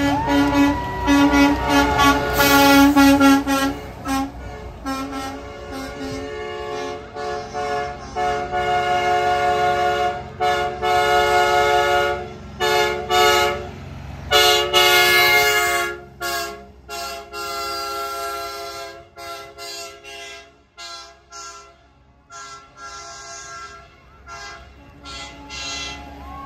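Air horns on passing semi trucks blasting over and over in loud chords, some held for several seconds, growing sparser after about sixteen seconds. A wail rises and falls near the start.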